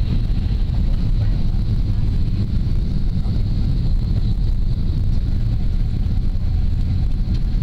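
Steady cabin noise of a Boeing 777-200 airliner low on its approach: a loud, even rumble of the engines and airflow, with a steady hiss higher up.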